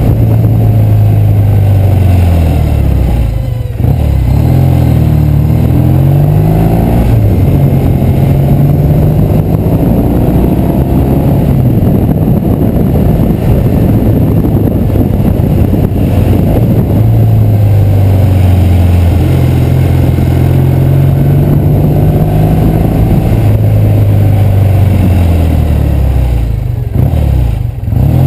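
1968 Triumph Bonneville's 650 cc parallel-twin engine heard from the saddle while riding, its pitch climbing as it accelerates and falling back several times as it eases off. There is a brief dip in level about four seconds in and another near the end.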